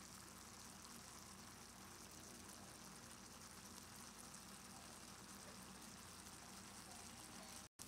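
Pot of black beans with onion and green pepper simmering: a faint, steady bubbling.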